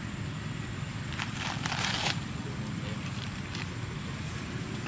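A short burst of rustling and crackling, like grass and leaves being handled, about a second in, over a steady low rumble.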